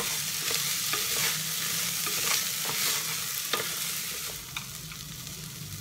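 Rice and moong dal roasting in ghee in a pressure cooker, stirred with a spoon: a steady sizzle with the spoon scraping and clicking against the pot, the strokes thinning out near the end.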